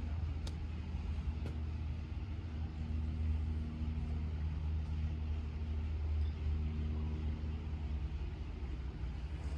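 Steady low outdoor rumble with a faint steady mechanical hum, and two light clicks within the first two seconds.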